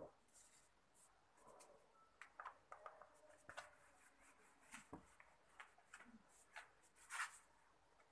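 Faint rubbing of a handheld eraser wiped in short strokes across a whiteboard.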